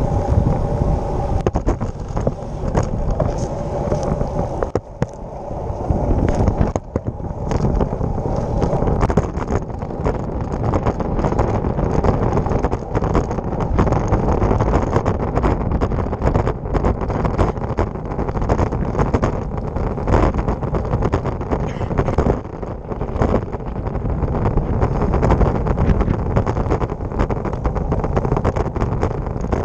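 Wind rushing over the microphone of a handlebar-mounted camera on a moving road bike, with tyre and road noise and frequent short rattles and knocks as the bike rolls over the rough road surface.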